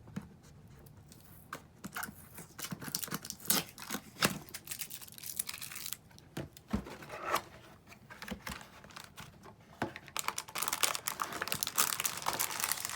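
Product packaging being torn and pulled open by hand: irregular tearing, clicks and rustling, with the crinkling growing denser near the end.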